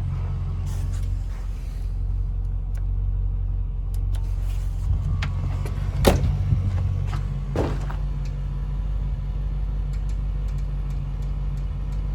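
Range Rover Classic's V8 idling steadily with the electronic air suspension raising the vehicle to off-road height. A sharp knock comes about six seconds in and another about a second and a half later.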